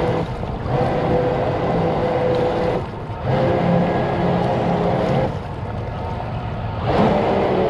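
Jet kayak's motor running with a steady hum over water noise, dropping out briefly about half a second in, again near three seconds, and for over a second from about five seconds before picking back up: the motor is cutting out.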